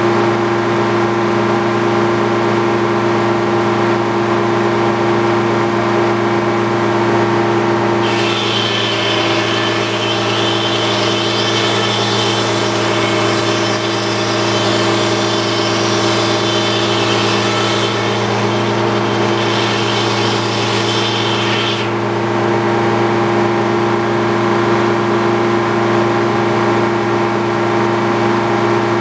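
Circular sawmill running with a steady hum, and about eight seconds in its large circular blade cuts through a squared log on the carriage for some fourteen seconds, adding a bright, high whine of the saw in the wood before the cut ends and the mill returns to its steady hum.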